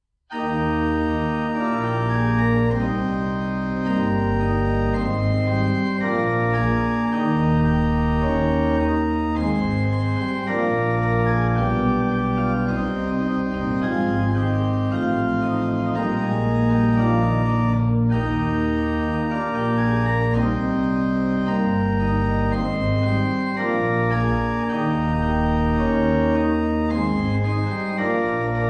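Organ playing an opening piece of music: sustained chords held over low bass notes that change every second or two, starting about half a second in.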